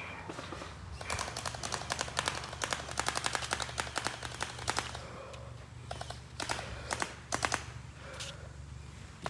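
Gel blaster firing in rapid bursts of sharp clicks, about ten shots a second: a long burst in the first half and a few shorter bursts later, over a steady low rumble.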